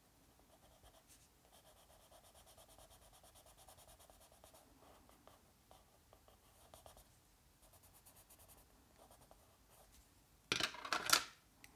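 Caran d'Ache watercolor pencil scratching on journal paper in quick, short back-and-forth shading strokes, faint and rhythmic. Near the end comes a louder burst of noise, under a second long.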